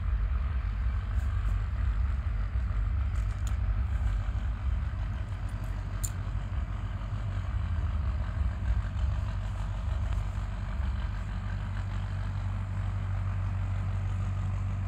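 A vehicle engine idling: a low, steady rumble that holds without break.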